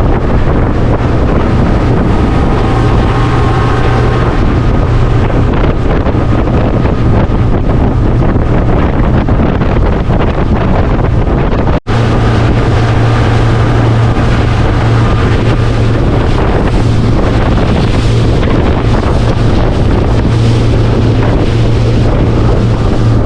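Motorboat engine running steadily underway, with wind buffeting the microphone and the rush of water over the hull. The sound drops out for an instant about halfway through.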